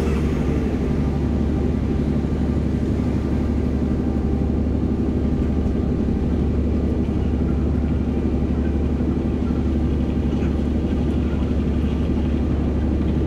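Steady low drone of the Taihua ferry's engines and machinery running, a deep hum with a few faint steady tones above it.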